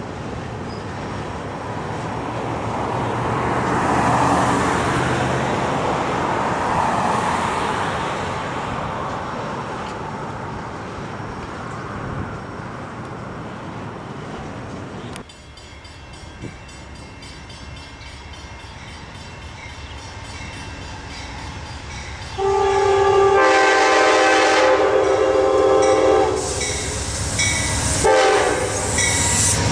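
A distant freight train rumbling steadily across a steel truss railroad bridge. After a cut, an approaching Amtrak GE P42 diesel locomotive sounds its multi-tone air horn, starting about two-thirds of the way in: one long blast, then more blasts with short breaks. The horn is the loudest sound.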